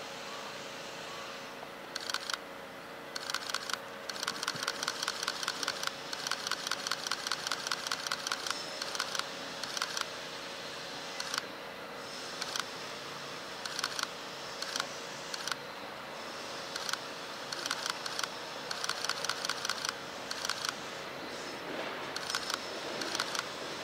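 Camera shutters firing in rapid bursts: runs of sharp clicks, about six to eight a second, starting about two seconds in and stopping and restarting many times.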